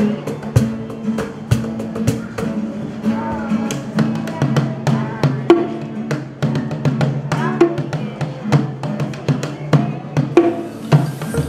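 Live acoustic guitar and drums: a boy sings to strummed guitar chords while drums are struck in a quick, steady beat.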